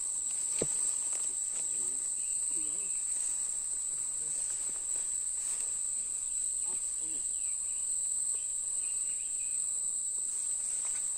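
Steady, high-pitched drone of forest insects.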